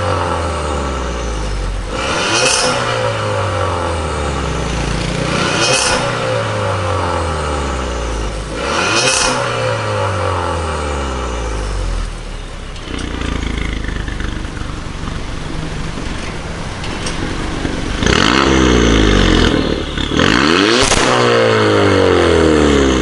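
VW Golf TSI engine heard through an IDTEC aftermarket valved exhaust, blipped three times about three seconds apart, each rev rising and falling back. It then idles steadily for several seconds before two louder, longer revs near the end.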